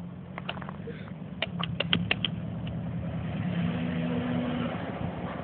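A motor vehicle's engine running and slowly growing louder as it draws nearer over snow. A quick run of short clicks comes in the first two seconds.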